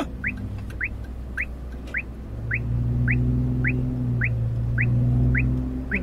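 A short rising chirp repeated at an even pace, a little under two a second, over the vehicle's running hum, which grows louder about two seconds in.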